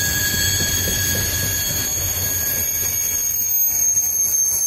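Loaded coal hopper cars of a freight train rolling past on a curve: a steady rumble of steel wheels on rail, with high, thin wheel squeal from the wheel flanges grinding along the curved rail.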